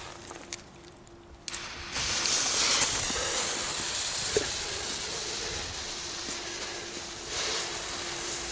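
Ground spinner firework (Xplode Crazy Eyeball, category F1) catching about a second and a half in, then burning with a loud, steady hiss as it sprays sparks.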